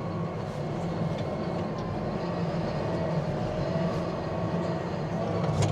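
Claas 850 tractor's engine running steadily as it is edged into position, with a faint whine for a couple of seconds in the middle and a sharp click near the end.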